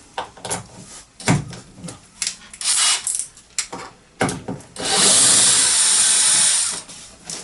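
Timber and tools being handled, with scattered knocks and clicks, then a loud steady rushing noise lasting about two seconds.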